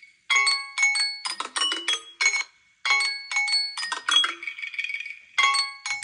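Timer alert ringing on Samsung Galaxy Z Flip phones whose timers have run out: a melody of bright chime-like notes, repeated about every two and a half seconds.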